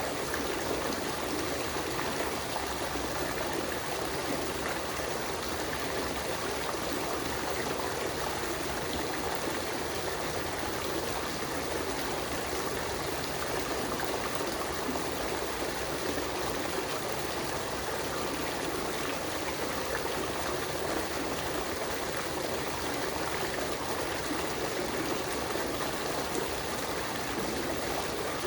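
Water fountain running steadily, an even, unbroken rush of falling water.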